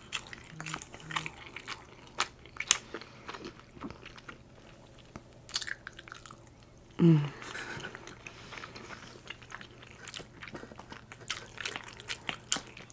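Close-miked eating sounds of a person chewing a forkful of penne Alfredo: wet mouth clicks and smacks, with a fork clicking in the foil tray. About seven seconds in there is a brief sound of the voice, falling in pitch.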